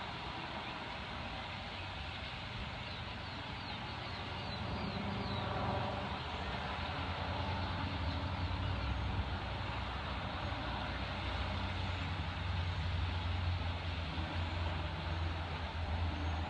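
Compressor running with a steady low hum that swells louder about six seconds in.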